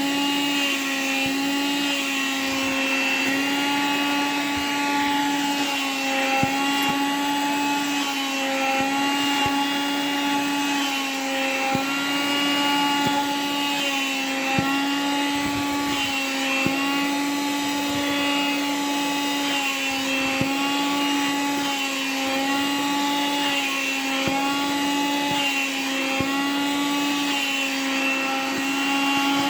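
Vacuum cleaner running steadily as its nozzle is drawn over a nylon windbreaker suit. The motor's hum dips slightly in pitch and recovers every second or two, with a few faint clicks.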